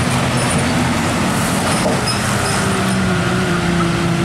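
Old Hino Ranger truck's diesel engine running as it drives past and away, with tyre and road noise; its engine note drops slightly in pitch in the second half.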